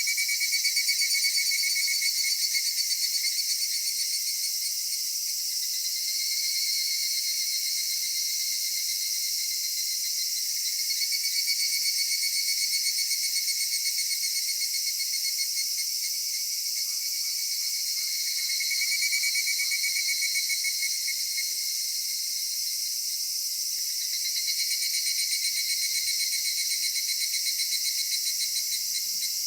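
Chorus of cicadas: several overlapping high, fast-pulsing songs that swell and fade in phrases every few seconds.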